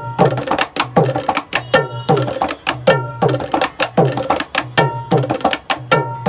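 Dholki drum played in a steady fast rhythm, sound-checking the instrument: sharp strokes on the small treble head ring with clear high tones, while strokes on the bass head give low tones that slide down in pitch.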